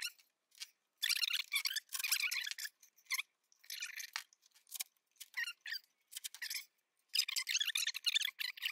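Hands working at a wall-mounted electrical box: irregular short bursts of high-pitched scraping, rustling and squeaking, in clusters about a second long with brief quiet gaps between them.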